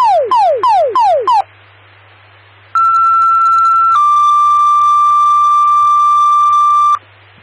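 Fire dispatch radio tone-out: a rapid run of falling chirps, about three a second, stops about a second and a half in. After a pause comes a two-tone sequential page, a steady tone for just over a second stepping straight into a slightly lower tone held for about three seconds, the signal that alerts the station to respond. A steady low hum runs underneath.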